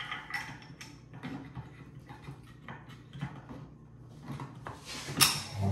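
Small irregular clicks and taps of steel rifle parts and screws being handled and fitted during reassembly of an M1916 Mauser, with one louder knock about five seconds in.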